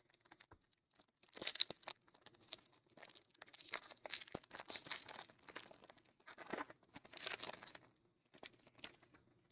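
A trading-card pack wrapper being torn open and crinkled, with cards handled: a run of irregular rustles and crackles, the loudest about a second and a half in.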